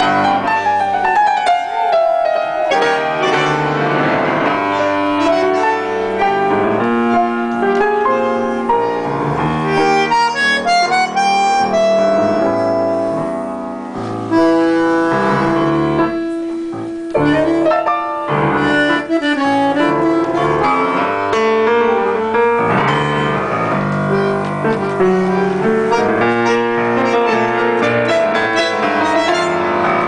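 Bandoneon and grand piano playing a tango together, the bandoneon's sustained reed notes over piano chords and runs.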